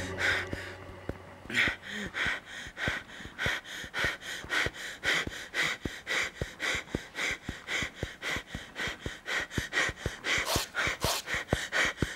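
A climber panting hard with exertion: quick, even breaths, about four a second. The last low note of music dies away in the first second and a half.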